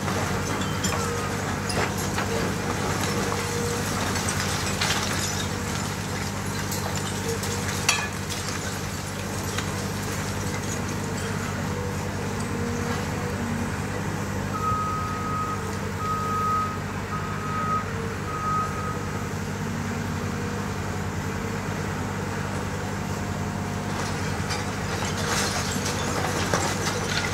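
Caterpillar 340F demolition excavator's diesel engine running steadily while its long-reach jaw works the concrete of a building, with scattered sharp cracks of breaking concrete and falling debris. About halfway through, a warning alarm beeps four times.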